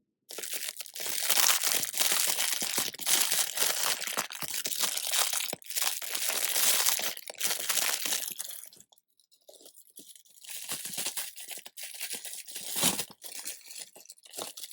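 Crinkly plastic packaging rustling and tearing as a squishy toy is unwrapped, dense for the first eight seconds or so, then quieter, scattered crinkles.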